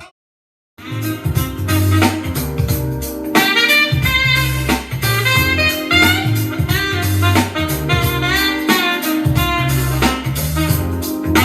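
Music played on a Bluetooth speaker: a saxophone-like melody over a pulsing bass and beat, starting after a short silent gap at the beginning.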